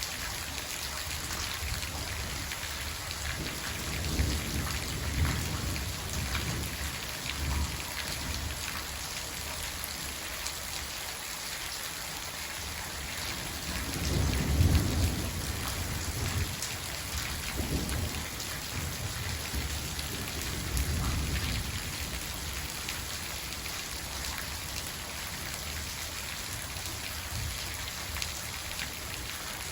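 Steady rain falling, with several low rolls of thunder; the loudest comes about halfway through.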